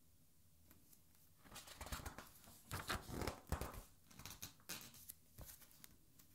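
A page of a hardcover art album being turned by hand: paper rustling and swishing, loudest about two to three seconds in, then a few softer rustles as the pages are smoothed flat.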